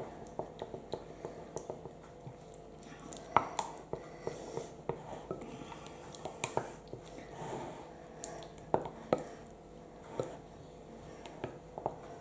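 A utensil stirring a thick mixture of sweetened condensed milk and Greek yogurt in a bowl. It makes soft wet squelching with irregular clicks and taps against the bowl.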